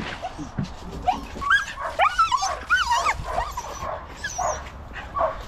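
Border collie sheepdogs yipping and whining, many short high cries that rise and fall in quick succession, several overlapping in the middle.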